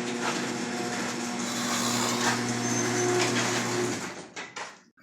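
6.1 Hemi V8 engine running steadily with the new alternator fitted; the sound cuts off about four seconds in.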